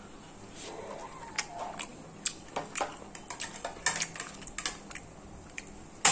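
Cutlery clinking and scraping against a plate while eating: a run of irregular sharp clicks, with a louder clink at the very end.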